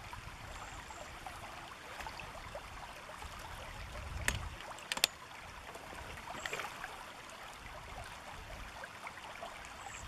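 Steady rush of a shallow river running over gravel shallows, with two sharp clicks about four and five seconds in.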